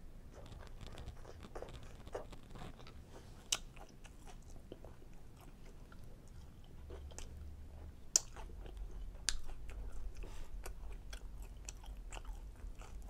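Close-miked chewing of chicken fajitas with peppers and onions in a tortilla: a run of wet mouth sounds and small crisp clicks, the sharpest about three and a half, eight and nine seconds in.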